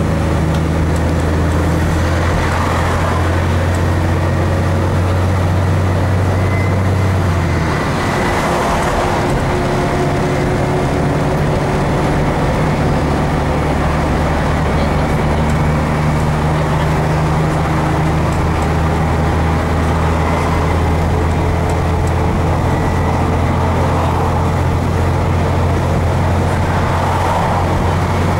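Bus engine running at speed, with a steady low drone and road noise heard inside the passenger cabin. The engine note breaks and changes about eight seconds in, then carries on steadily.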